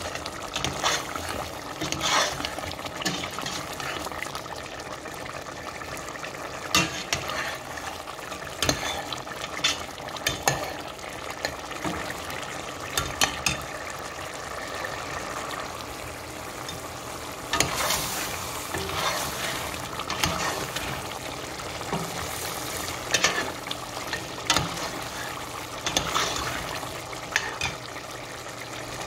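Metal spoon stirring a pot of thick mutton stew as it sizzles over the flame, with irregular clicks and scrapes of the spoon against the pot. The stew is being fried down to thicken the gravy.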